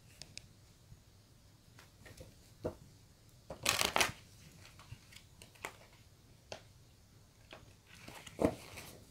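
A tarot deck shuffled by hand: soft card clicks and rustles, with a louder burst of shuffling about four seconds in and another near the end.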